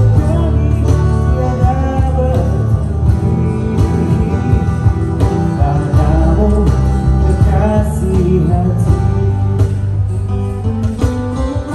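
Live band playing an instrumental passage of the song, with guitar, a steady low bass and a wavering lead melody line.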